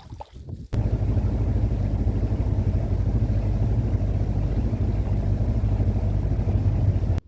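Boat motor running steadily with a low, even pulse. It starts suddenly about a second in and cuts off abruptly near the end.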